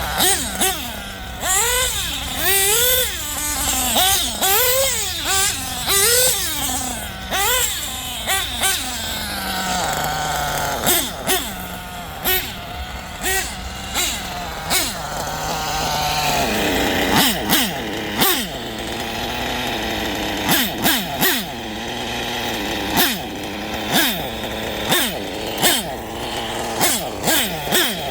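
Small LRP nitro RC car engine revving up and down over and over, its high pitch rising and falling about once a second. From about the middle on, a run of sharp cracks sounds over the engine. The engine is running after its exhaust leak was fixed.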